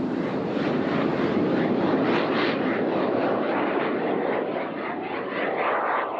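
High-power rocket motor burning as the rocket climbs off the pad: a loud, crackling rush that slowly fades as it moves away.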